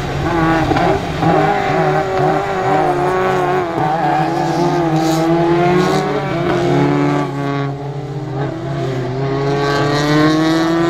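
Several rallycross race cars running hard through a corner, their engines revving and overlapping, with the pitch rising and falling as they accelerate and lift.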